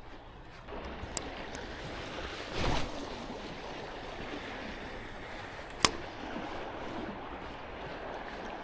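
A small hooked sea trout splashing at the surface over steady water noise, with one louder splash about two and a half seconds in. Two sharp clicks are also heard.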